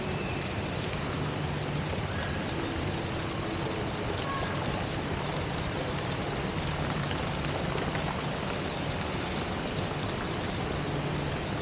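Steady rushing noise like flowing or falling water, with a faint low hum that comes and goes.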